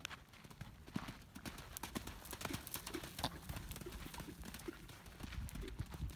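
Hoofbeats of a yearling colt cantering loose on sand: a quick, irregular run of dull thuds.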